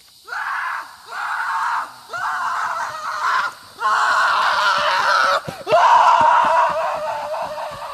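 A person screaming in about five long bursts with short breaks between them, the last one the loudest.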